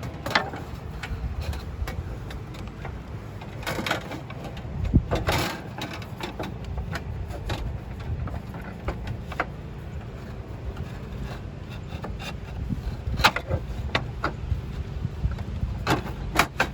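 Scattered knocks and clinks of metal roof-anchor parts being handled and fitted on a slate roof, over a steady low rumble. The strongest knocks come about 4 to 5 seconds in and near the end.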